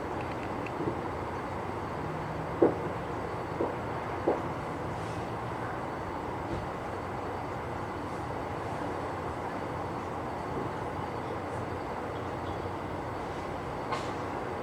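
Distant fireworks going off as short sharp pops, three within about two seconds a few seconds in and one more near the end, over a steady outdoor rumble.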